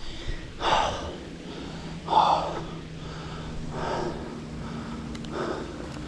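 A cyclist breathing hard while riding, one heavy breath about every second and a half.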